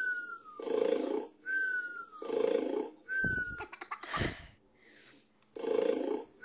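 Recorded snoring of a man played back: rasping snores repeat about every one and a half to two seconds, each paired with a short falling whistle. Near the middle the snoring breaks off for a moment under a few clicks and a brief rustling clatter.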